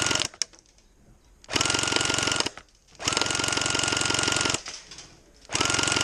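Airsoft minigun firing long full-auto bursts, its motor whine rising at the start of each burst over a fast rattle. One burst ends just after the start, then come three more of about one to one and a half seconds each.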